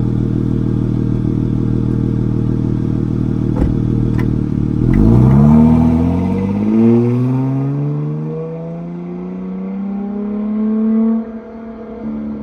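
Dodge Charger GT's engine through original Flowmaster 40 series dual exhausts, idling steadily, then pulling hard. The revs climb in first gear, drop at the shift to second about six and a half seconds in, then climb again more slowly. Near the end the throttle is lifted and the engine note falls away sharply.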